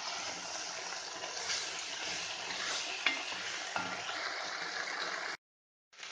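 Chopped vegetables and tomato purée sizzling and frying in an enamelled cast-iron casserole while being stirred with a wooden spoon, a steady hiss with a couple of light knocks of the spoon against the pot about three seconds in. The sound cuts out completely for about half a second near the end.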